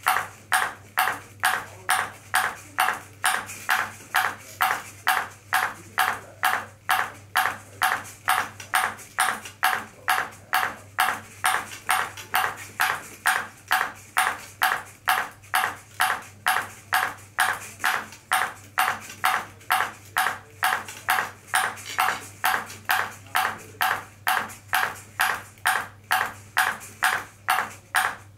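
Ping pong ball bouncing over and over on a robot's clear plastic paddle, sharp even ticks about twice a second, with a steady low hum underneath.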